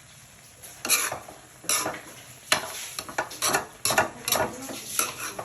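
Chicken being stirred in a hot pot of its cooking juices: repeated scraping strokes of a utensil against the pot, coming quicker from about halfway, over a light sizzle.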